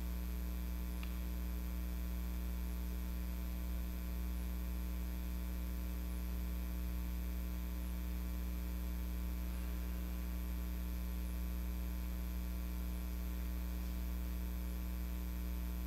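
Steady low electrical hum with a ladder of higher overtones above it, unchanging throughout: mains hum in the recording.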